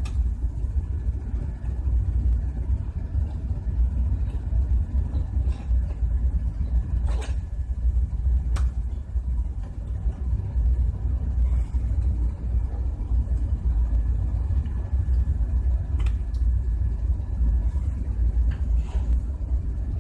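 Steady low rumble throughout, with a handful of short, sharp metallic clicks as the steel springs and plates of a compressor discharge valve are handled and fitted onto the valve seat.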